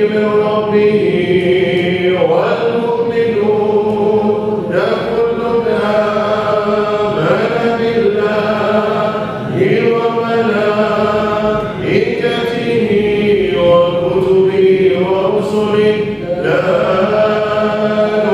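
A group of voices chanting Islamic dhikr together: a melodic chant of long held notes that bend in pitch, repeated in phrases of about two and a half seconds.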